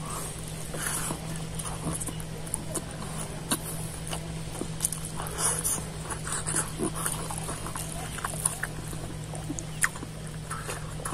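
Close-miked chewing and lip-smacking as a man eats a handful of rice with buffalo meat pickle by hand: many small irregular wet clicks and smacks over a steady low hum.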